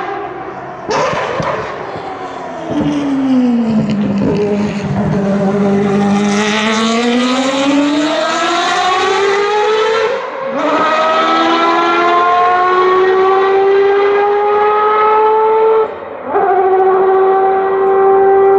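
Historic race car engine slowing for a corner, its pitch falling, then accelerating hard out of it and rising in pitch, with about three upshifts that each cut the sound briefly.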